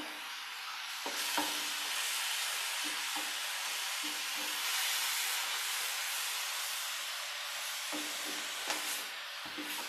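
Sliced onions with curry leaves and green chillies sizzling steadily in oil in a nonstick frying pan as they soften. A wooden spatula stirs them, knocking and scraping against the pan now and then.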